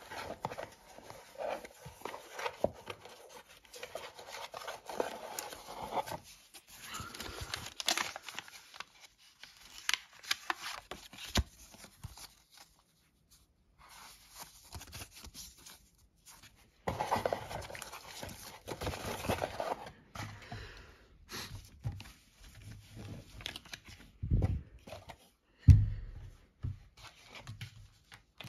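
Hands handling cardboard and paper packaging: irregular rustling, scraping and crinkling with small clicks, and two dull thumps near the end.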